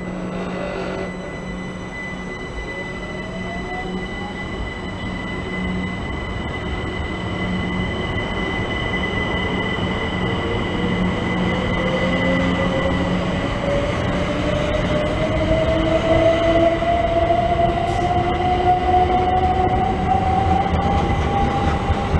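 Electric multiple-unit passenger train gathering speed through the station, its traction motors whining and rising steadily in pitch. A steady high tone runs over the motor sound, and the train grows slowly louder.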